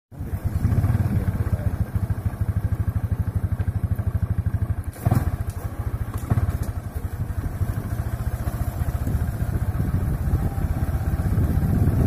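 Motorcycle engine running at low speed with a rapid, even pulse while being ridden. A couple of knocks come about five and six seconds in as it jolts over the rough dirt track.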